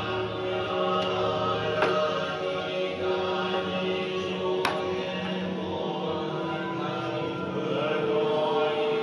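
Background music of slow, chant-like voices holding long notes, with two sharp clicks about two and five seconds in.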